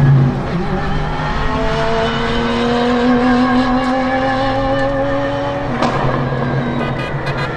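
Pagani Huayra R's naturally aspirated V12, on an unrestricted exhaust, accelerating hard. Its pitch climbs steadily for about five seconds, then drops sharply at a gear change.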